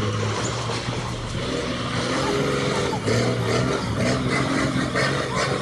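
A motor vehicle's engine running steadily, its pitch shifting slightly partway through, with road noise.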